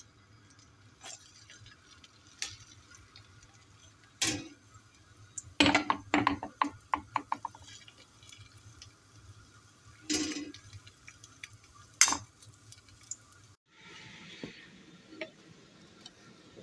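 A metal spoon clinks and scrapes against a ceramic bowl and a nonstick frying pan as the batter is spooned into the pan: single sharp clinks, and about six seconds in a quick run of taps that fades out.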